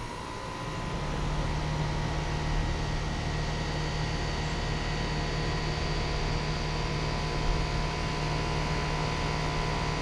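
American Standard Silver Series 2-ton, 14 SEER straight-cool central air conditioner condensing unit starting up: its compressor and condenser fan come up to speed over the first second or so, then run steadily with a low hum and a rush of fan air.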